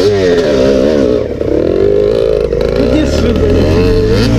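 Kawasaki 250 dirt bike engine revving, the pitch swinging up and down with repeated throttle blips over a steadier low engine note.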